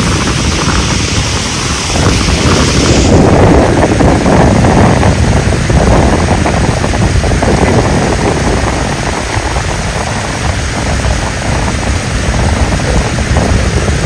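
Loud, steady rush of water spilling over a concrete weir. About three seconds in the hiss loses its highest part and sounds duller.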